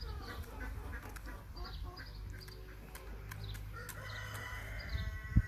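Brahma hens clucking while pecking corn kernels from an open hand, with sharp clicks of beaks striking the kernels. A longer, steady call begins about four seconds in, over a low rumble of wind on the microphone, and a single thump comes just before the end.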